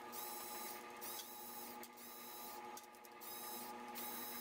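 Cordless power driver running in about four short bursts of whine, each roughly half a second, as it spins out the cam support plate bolts of a Harley-Davidson Twin Cam engine.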